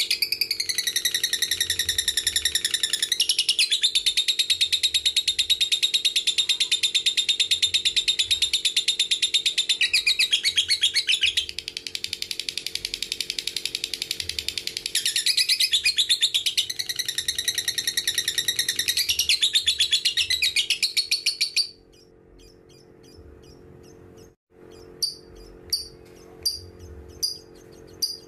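Lovebird giving its long 'ngekek' chatter: a rapid, unbroken chattering trill for about twenty seconds that stops abruptly. A few seconds later it gives short single chirps about twice a second.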